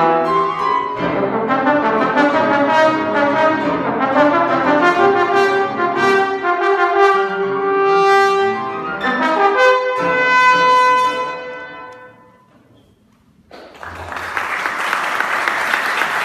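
Trombone playing a slow melody with long held notes over grand piano accompaniment, dying away about twelve seconds in. After a moment's quiet, applause fills the last couple of seconds.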